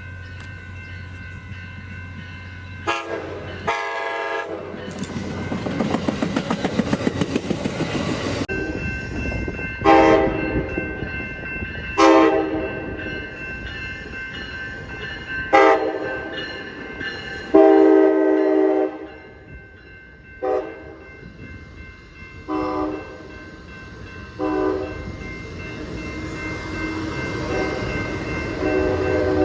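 Horn of an 8300-series passenger cab car sounding about ten blasts, mostly short, with one longer blast past the middle. A stretch of rhythmic wheel clatter from the passing train comes in the first third.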